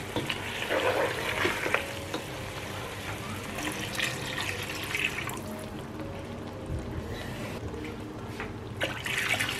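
Water poured from a glass into a pot of thick mutton curry masala.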